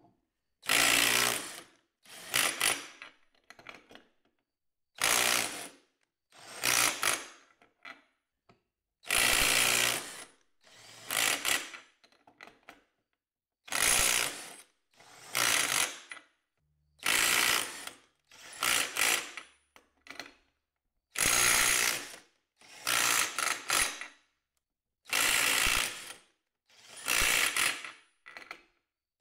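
Masterforce 20-volt brushless 1/4-inch impact driver hammering in repeated bursts of about a second, with short pauses between. It is working to break loose big bolts torqued to 100 foot-pounds and more.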